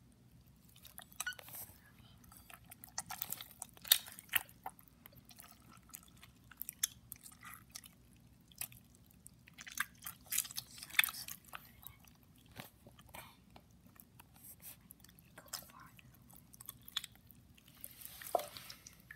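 Hands squeezing and kneading wet white glue-and-borax slime, making irregular sticky squelches and small clicks with quiet gaps between them.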